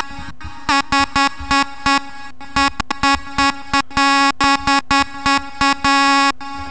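Bright synth lead playing short staccato stabs on one repeated note in quick rhythmic groups, then one longer held note near the end.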